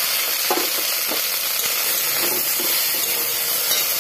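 Cut okra sizzling steadily as it fries in hot oil in a metal kadhai.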